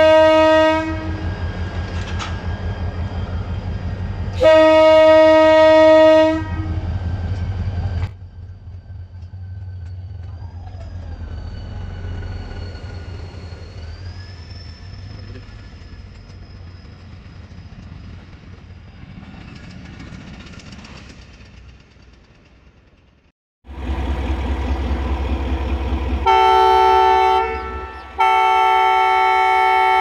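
GMU-30 diesel locomotive sounding its departure horn in two blasts, over the throbbing of its engine as it pulls away. Its coaches then roll past more quietly with a faint high whine. Near the end a second diesel locomotive blows a loud multi-note horn, broken by a short gap.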